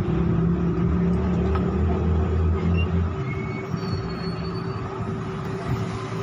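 A steady low hum and rumble, strongest for the first three seconds and then easing.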